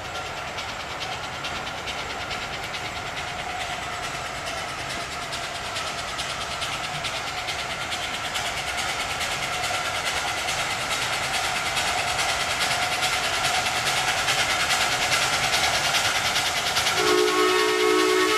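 A 12-inch gauge live-steam locomotive pulling loaded passenger cars, its rapid running beats and rail noise growing louder as it approaches. About seventeen seconds in its steam whistle sounds a long blast of several pitches at once.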